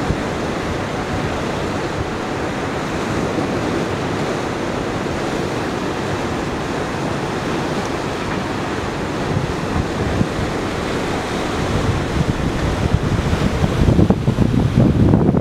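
A steady rush of wind and sea water, with wind buffeting the microphone. The buffeting grows gustier in the last few seconds.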